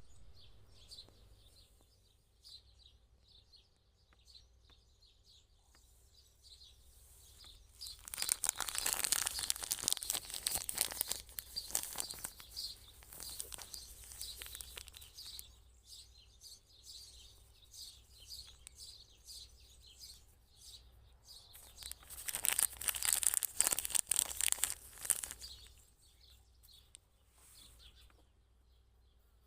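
Handmade fabric baby toy and scrunchie being squeezed and handled, their crinkly filling giving a crackling rustle. It comes in two long bouts, about eight seconds in and again about twenty-two seconds in, with lighter crinkling between.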